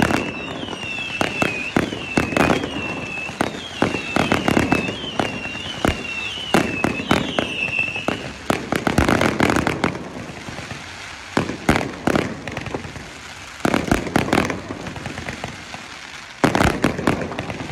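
Fireworks display: rapid bangs and crackling of bursting shells, with a high wavering whistle repeating through the first half. The bursts thin out for a few seconds, then a loud cluster of bangs comes near the end.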